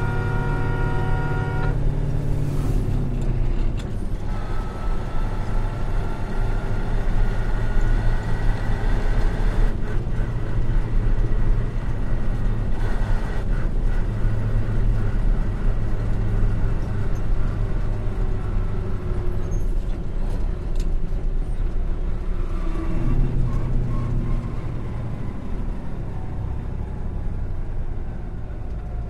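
Truck engine and road noise heard from inside the cab while driving. The engine note rises through the gears, then falls away again after about twenty seconds as the truck slows.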